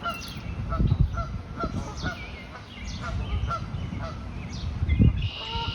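Waterfowl calling: a run of short honk-like calls a few times a second, with high falling peeps of young birds above them. There are a couple of low thumps, about a second in and just before the end.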